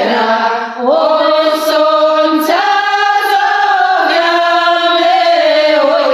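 A small group of women singing a Ukrainian folk song a cappella in several voices, holding long notes and sliding between them. There is a short breath break about three-quarters of a second in.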